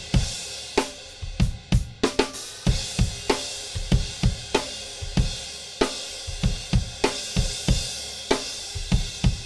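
Diril 19-inch Raw Bell crash cymbal struck over a drum-kit beat of kick and snare, each crash ringing out in a long, bright wash beneath the steady drum hits.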